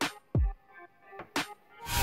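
Background electronic music with a beat: deep kick-drum thumps that fall in pitch and sharp hits, with a rising swell near the end into a louder passage.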